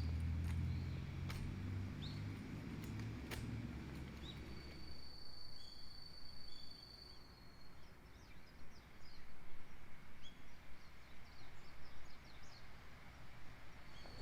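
Outdoor ambience with birds chirping, one high thin trill held for a couple of seconds, and a low engine rumble that fades out over the first few seconds.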